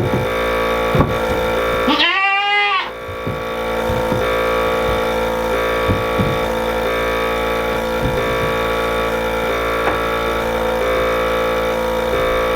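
A goat bleats once, a single wavering call about two seconds in, over a steady background of sustained tones, with small scattered knocks and shuffles.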